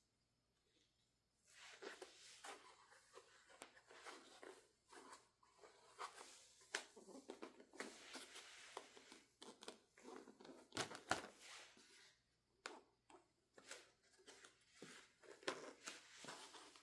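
Faint rustling and crinkling of packaging being handled while a diecast model airliner is unpacked, with many small clicks and taps; it starts about a second and a half in and pauses briefly near the end.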